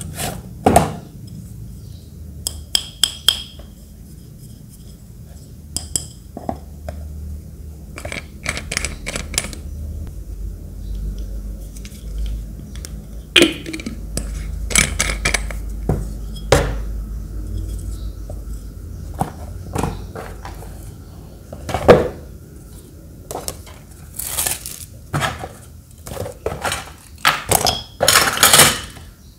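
A glass water bottle with a metal screw cap being handled and slid out of its cardboard box: scattered clinks and knocks of glass and metal, some in quick clusters, with rubbing and scraping of cardboard, the loudest a single knock about two-thirds of the way through.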